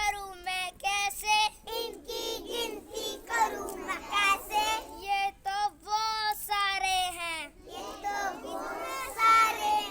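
A child's high voice singing a rhyme in a sing-song chant, syllable by syllable.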